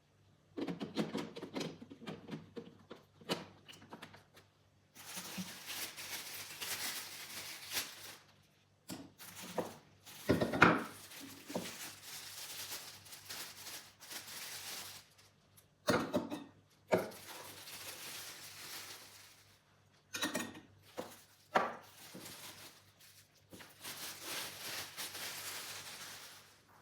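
Kitchen handling sounds: dishes and utensils knocking and clattering, broken by several stretches of steady rubbing or rustling noise lasting a few seconds each.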